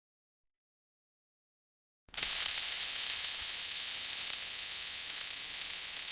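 Welding: a steady, high-pitched sizzling hiss that starts suddenly about two seconds in.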